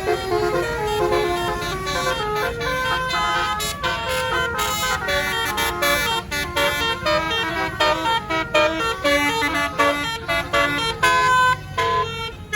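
Tour bus's telolet basuri musical air horn playing a melody of short and held notes that step up and down in pitch, over the low rumble of the bus.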